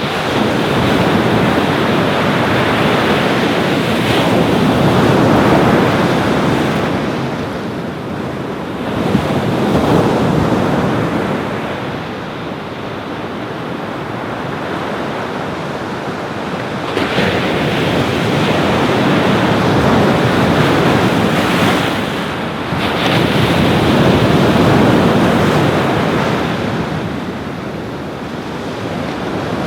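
Ocean surf washing onto a beach, a steady rush of breaking waves that swells and ebbs in slow surges several seconds apart.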